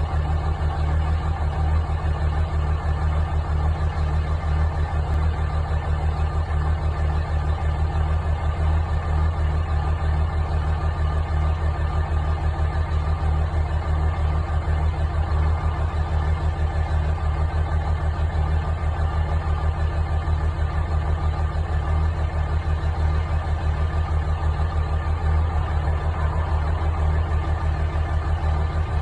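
Dodge Ram's 5.9 Cummins common-rail inline-six turbo-diesel idling steadily from a cold start. Its running is the sign of a bad injector.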